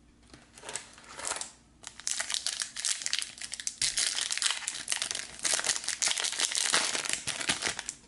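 Foil wrapper of a Garbage Pail Kids Chrome trading card pack crinkling as it is torn open by hand: two brief rustles, then about six seconds of continuous crackling.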